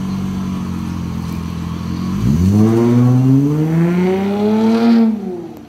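Sports coupe engine idling, then pulling away about two seconds in and accelerating, its note rising steadily before fading quickly as the car drives off.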